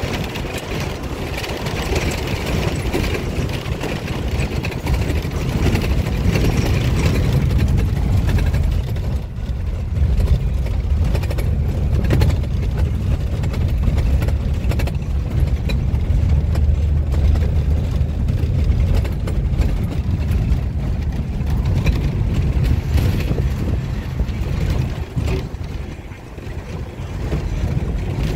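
Safari vehicle driving on a dirt track, heard from inside the cabin: a steady, loud low engine and road rumble with scattered knocks and rattles from the body.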